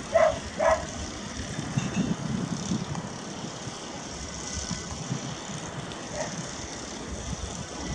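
Outdoor ambience with a low, unsteady distant rumble and a steady high hiss. A dog barks twice right at the start and once more about six seconds in.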